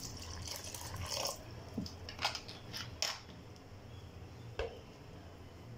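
Cold water poured in a thin stream into a plastic bowl of cream, trickling faintly for about the first second, followed by a few faint clicks and knocks.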